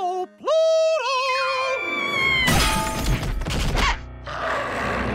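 Cartoon sound effects: a short wavering cry, then a long held pitched yell with a slowly falling whistle. About two and a half seconds in comes a loud crashing, scuffling racket, which breaks off briefly near the end and starts again.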